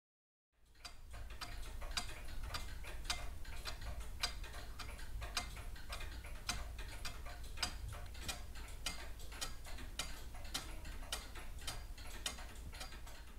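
Restored 150-year-old Ingraham pendulum wall clock ticking steadily and evenly, its rebuilt brass movement and verge escapement running. The ticking starts about half a second in.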